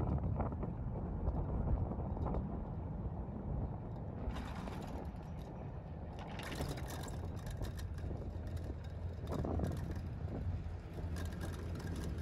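Wind rushing over the microphone during a chairlift ride, over a steady low rumble, with faint scattered clicks and crackles through the middle.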